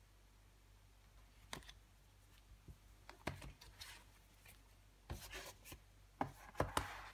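Paper and card being handled: photobook pages turned and a card insert picked up. Soft rustles and scattered light taps, with a busier cluster of taps and rustles in the last two seconds.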